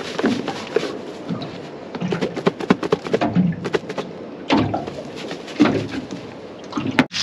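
Fish pieces being shaken in a lidded plastic container of coating mix: irregular knocking and rattling in two spells.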